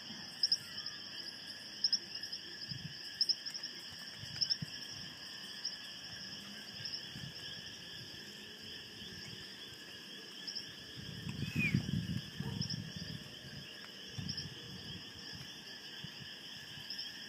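A steady outdoor chorus of insects chirring, with a high chirp repeating about once every second and a bit through the first half. A low rumble rises briefly about two-thirds of the way through.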